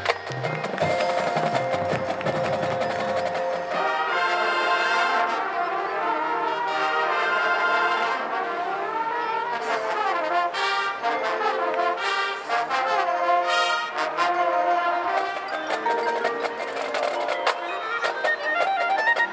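High school marching band playing its field show: brass carrying chords and melody over the front ensemble's percussion. Low drum hits sound in the first few seconds, and the brass grows fuller about four seconds in.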